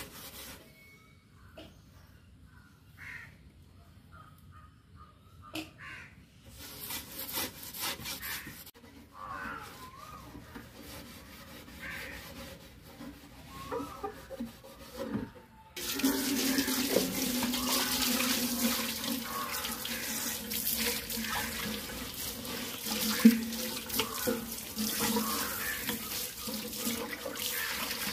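Hands scrubbing the glass of an empty aquarium give faint scattered rubbing sounds. About halfway through, water from a hose starts running steadily into the glass tank and splashes inside it. One sharp knock comes near the end.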